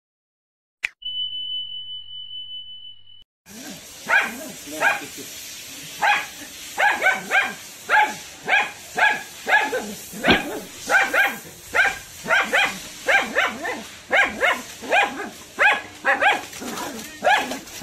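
A click and a short steady high beep, then, from about three and a half seconds in, a small dog barking repeatedly, about two sharp high barks a second, at a snake hidden in the leaf litter.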